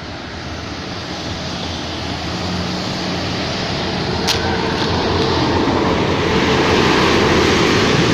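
Bus engine pulling up a hill and drawing nearer, growing steadily louder.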